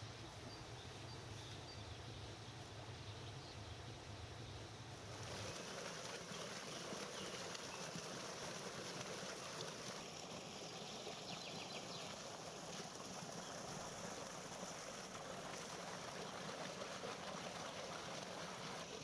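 Steady rush of a small stream spilling over a rock ledge in a little waterfall. It comes in about five seconds in, after quieter outdoor ambience with a low hum.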